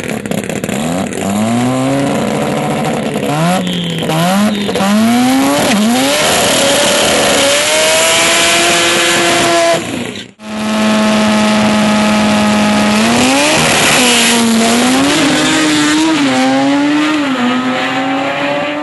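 Drag race car engine revving hard in repeated swells during a burnout, its pitch swinging up and down. After a sudden break about ten seconds in, the engine holds one steady high pitch, then climbs and dips as the car launches down the strip.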